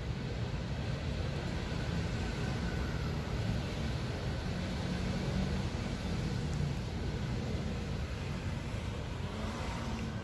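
Steady low rumble of city street traffic: cars running past on the road.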